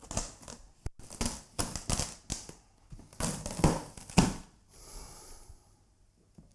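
Keyboard packaging being opened by hand: a run of crinkling, tearing and scraping with short knocks, and a steady hiss about five seconds in.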